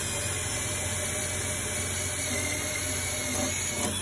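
Cordless drill running steadily, drilling out a tail-light mounting rivet with a 1/8-inch bit.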